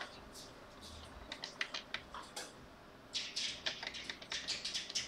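Light, irregular clicks and taps of small objects being handled on a workbench, sparse at first and coming thicker with some rustling from about three seconds in.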